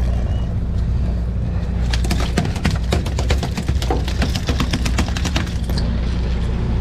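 A landed yellowfin tuna thrashing on the boat deck, its tail beating in a rapid run of knocks that starts about two seconds in and stops suddenly near the end. Under it runs the steady low hum of the boat's engine.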